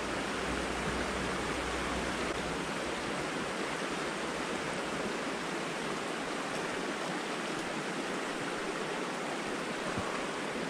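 Shallow creek water flowing over a rocky bed: a steady, even rushing.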